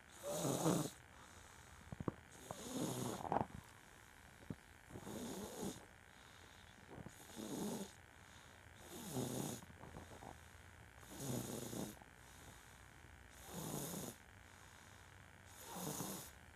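Loud snoring: a snore about every two seconds, eight in all, with quiet breathing in between.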